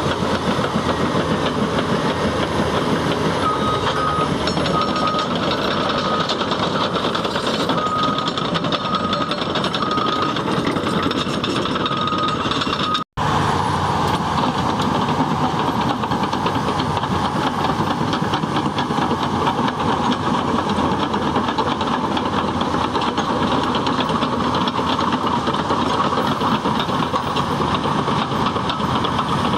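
Caterpillar D6T bulldozer working, its diesel engine running steadily with heavy mechanical noise. A string of short, high beeps sounds over the first half, and the sound cuts out for an instant about halfway through.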